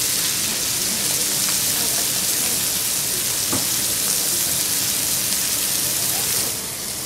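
Chicken and pork pieces sizzling on a hot steel teppanyaki griddle: a steady hiss that drops quieter about six and a half seconds in.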